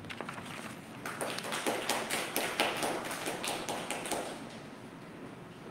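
Applause from a small audience: a few pairs of hands clapping irregularly. It starts about a second in and dies away after about four seconds.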